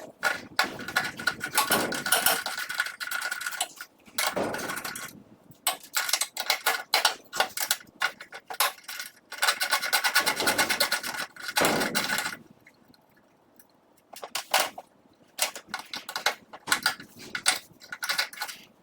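Metal hand tools working on a snowmobile's jackshaft bearing during its removal: runs of rapid metallic clicking, rattling and scraping, broken by a pause of about a second and a half a little past the middle.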